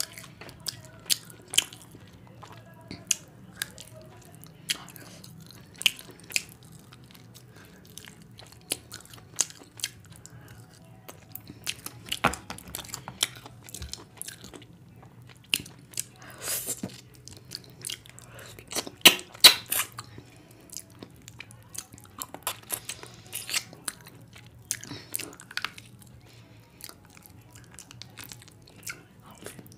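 Close-miked eating by hand: wet chewing and lip smacks, with fingers working rice and curry on a plate, as a string of short clicks and smacks with a loud cluster about two thirds of the way in.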